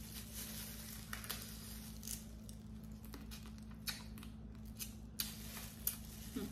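Cooked blue crab being picked apart and eaten with plastic-gloved hands: scattered short cracks and clicks of shell and crinkling of the plastic gloves, over a steady low hum.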